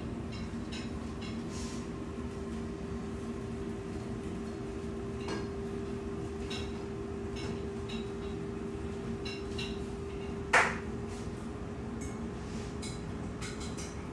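Kitchen clatter from cooking: scattered light clinks and taps of dishes and utensils over a steady low hum, with one sharp, loud clank about ten and a half seconds in.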